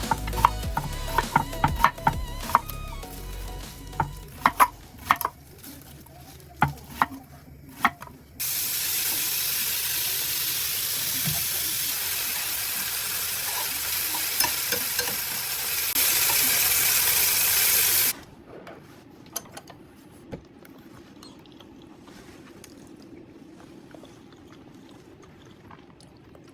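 Utensils clinking and knocking against cookware, then food sizzling loudly and steadily in a hot frying pan for about ten seconds. The sizzle grows louder shortly before it cuts off suddenly, leaving a faint hiss and occasional clicks.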